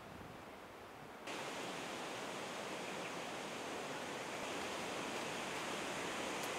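Steady, even outdoor rushing noise with no distinct events, like wind or distant water; it gets suddenly louder about a second in and then holds steady.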